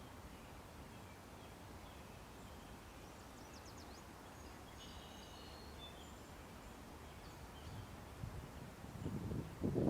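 Low, steady outdoor background noise with a few faint bird chirps about halfway through, then rough rumbling and rustling bursts that grow louder near the end.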